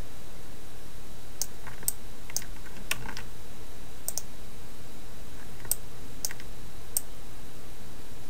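Scattered clicks of a computer mouse and keyboard, about ten spread irregularly over several seconds, over a steady hiss and low hum.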